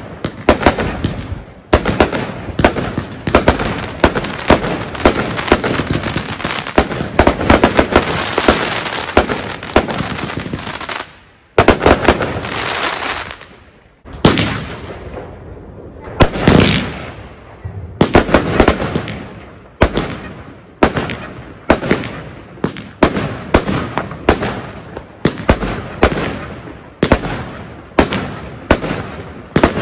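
Consumer firework batteries firing. The Argento Blossom battery gives a dense run of rapid bangs and crackle that breaks off about eleven seconds in, followed by a short final burst. A few seconds later the Argento Fora battery starts, firing single shots at a steady pace of roughly two a second.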